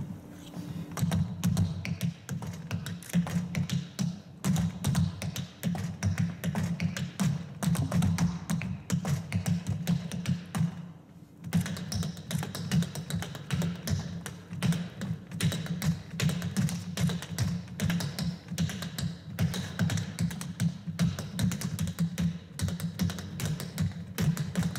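Hoofing-style tap dancing: a fast, dense, rhythmic stream of heel and toe taps from tap shoes striking a wooden board, with a brief pause a little before halfway.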